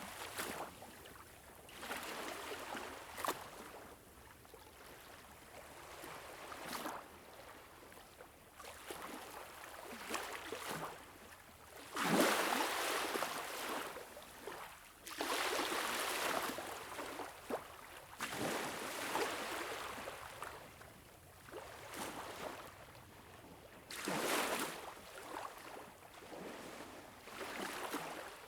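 Water washing in and out in surges, one every two to four seconds, like small waves breaking on a shore, with a few brief splashes.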